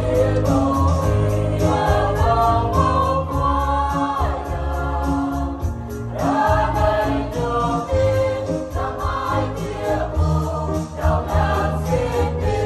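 Mixed choir of men and women singing a hymn in harmony in the Êđê (Rhade) language, with electric keyboard accompaniment holding sustained bass notes.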